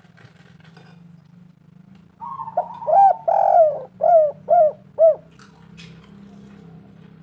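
Spotted dove (tekukur) cooing: one phrase starting about two seconds in, a drawn-out note followed by five short, arching coos. A faint steady low hum lies beneath.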